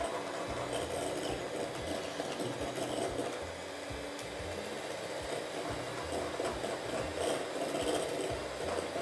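Electric hand mixer whipping cream in a glass bowl, its motor running steadily with the beaters churning the cream.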